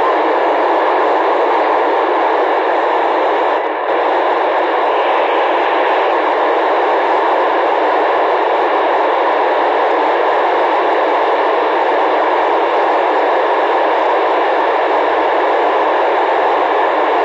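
Steady FM radio hiss, thin and cut off at the low end like a handheld transceiver's speaker, from a receiver with its squelch open on the PO-101 amateur satellite's FM repeater downlink; no voices come through, and the hiss dips briefly about four seconds in.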